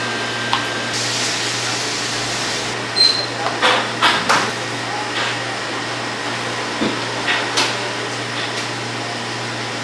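Steady low electrical hum and room noise, with a few short knocks and clatters about three to four and a half seconds in and another near eight seconds.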